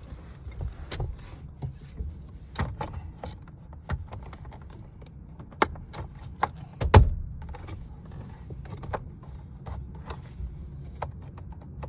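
Plastic steering-column trim being handled and pressed together: a run of irregular clicks, knocks and rattles, with one heavier knock about seven seconds in.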